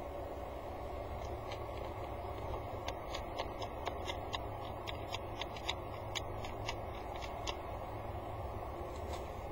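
Peregrine falcon pecking at the pebbles of its nest-box gravel with its beak: a run of sharp stone clicks, about three or four a second, starting about a second and a half in and stopping a couple of seconds before the end, over a steady background hum.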